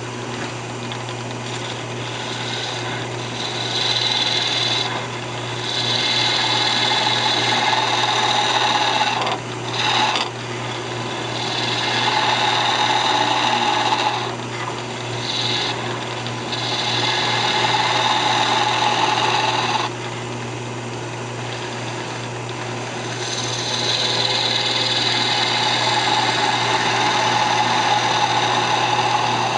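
Wood lathe motor running with a steady hum while a skew chisel cuts a spinning walnut spindle. The cuts come in repeated passes of a few seconds each, with short lulls between them as the tool is lifted and repositioned.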